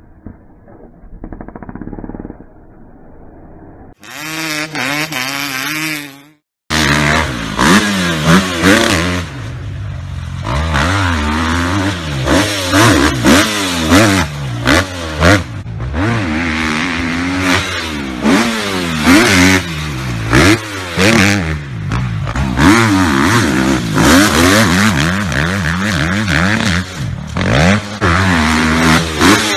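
A motocross dirt bike's engine revved hard again and again, its pitch climbing and falling as the rider accelerates, shifts and backs off through the corners. A few seconds in there is a shorter, quieter stretch of another engine that cuts off before the main run starts.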